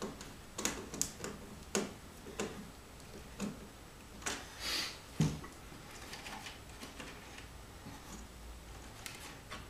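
Scattered light clicks and taps of hands working wires at a screw terminal strip on a plywood wiring panel, with a short rustle and a soft knock about halfway through.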